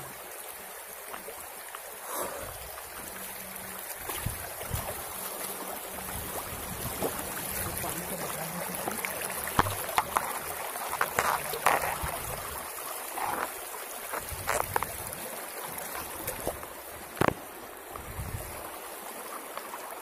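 Shallow rocky stream flowing, a steady rush of water throughout, with scattered short knocks and clicks over it, a cluster of them about halfway through and a sharp one near the end.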